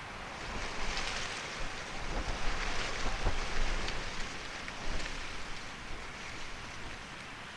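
A gust of wind rustling the bush and buffeting the microphone, rising about half a second in, peaking with low rumbles in the middle, and dying away.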